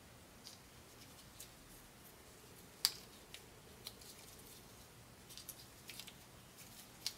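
Faint crinkles and small clicks of Teflon thread-seal tape being pulled off the roll and wrapped around the threads of a brass air-line fitting by gloved hands. The sharpest click comes about three seconds in.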